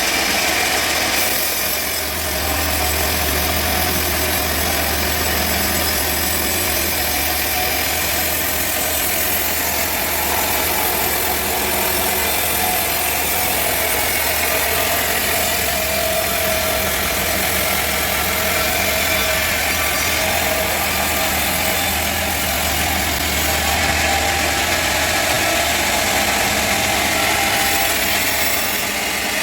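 Sawmill machinery running steadily, a loud even noise over a low engine hum.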